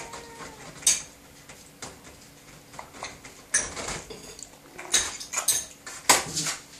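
Irregular clinks and knocks on a stainless steel food bowl as a bull terrier and a kitten eat raw minced meat from it.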